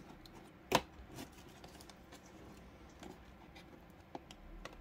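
Cardboard box being opened by hand at its taped lid: one sharp click about three-quarters of a second in, then faint clicks and rustling of the cardboard.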